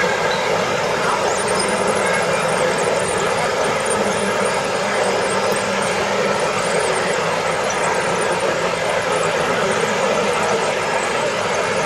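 Steady whirring of small electric motors from radio-controlled construction models running, with no change in pitch or level and faint high chirps above it.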